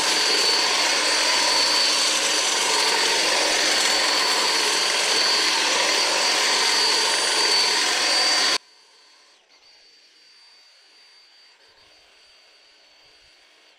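Atlas 40-volt cordless hedge trimmer running at full speed, its electric motor and reciprocating blades making a steady, even buzz with a thin high whine. It cuts off abruptly about eight and a half seconds in.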